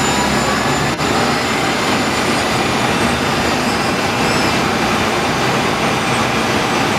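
Orion VII NG lithium hybrid bus running: a steady, loud rushing noise with faint high-pitched whining tones over it, and a brief dip about a second in.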